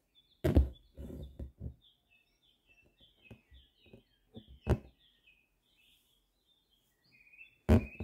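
Embroidery needle punching through drum-tight fabric in a hoop: three sharp pops, the first followed by a few smaller taps and creaks as the thread is drawn through. Small birds chirp steadily in the background.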